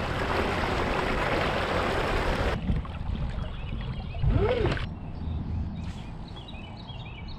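Water rushing and splashing along a fishing kayak's hull as it moves at speed, cutting off suddenly about two and a half seconds in. A quieter low hum follows, with faint bird chirps near the end.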